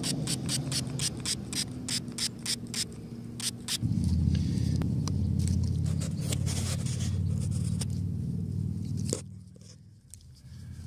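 Small hand spray bottle squirted over and over onto a muddy dug coin, a rapid series of short spritzes for about three and a half seconds. Then a louder steady low rumble that cuts off suddenly a little after nine seconds.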